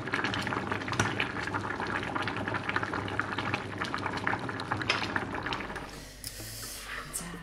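Kimchi jjigae boiling in a stainless steel pot, a dense crackle of bubbles popping. The bubbling stops about five and a half seconds in, leaving a quieter room hiss.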